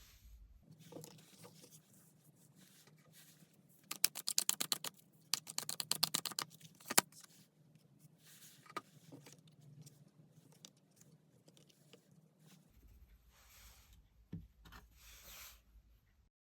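Tarot cards being shuffled and handled: two runs of rapid card clicks a few seconds in, with soft taps and rustling of the cards around them.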